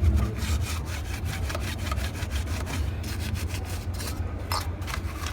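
Rapid scrubbing strokes on a computer motherboard being washed with water and detergent powder, over a low steady hum.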